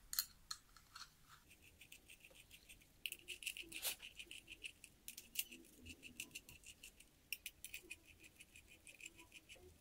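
Hex driver turning and seating the crankcase screws of a 1/5-scale Baja two-stroke engine by hand: faint, quick clicking of the tool in the screw heads, scattered at first and then running several clicks a second from about three seconds in.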